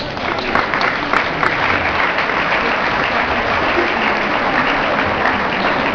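Audience applauding: dense, steady clapping that sets in at once.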